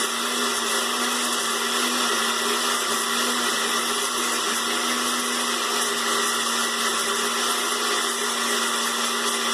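Countertop blender running steadily, blending lemon juice, aloe vera and onion: an even motor hum with a whirring rush that holds constant.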